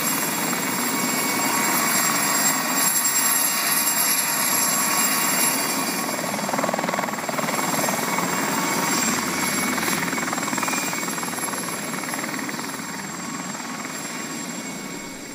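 Mosquito single-seat ultralight helicopter running and hovering low, a steady dense rotor and engine noise. It grows somewhat fainter over the last few seconds as the helicopter moves away.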